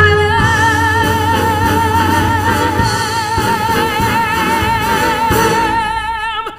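A female Broadway belter holds one long sustained note with a wide, even vibrato over live accompaniment, cutting off just before the end. It is a show of breath control: she holds the note longer than expected.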